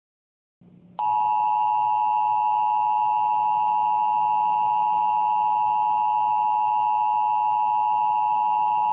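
Emergency Alert System attention signal: a loud, steady two-tone beep (853 Hz and 960 Hz sounded together) that starts abruptly about a second in, holds for about eight seconds and cuts off suddenly near the end.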